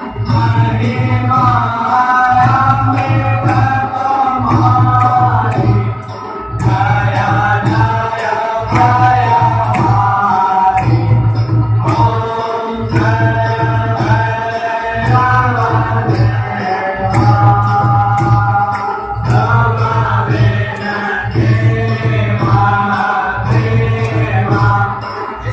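Devotional aarti music: voices singing over a steady, evenly repeating low beat.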